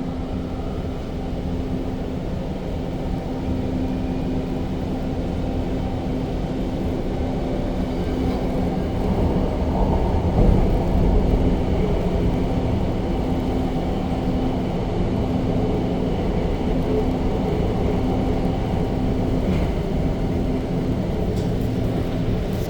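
Inside the cabin of an REM electric light-metro train running between stations: a steady rumble of wheels and running gear with a constant motor hum, swelling slightly about halfway through. Storm wind howls through the train's doors.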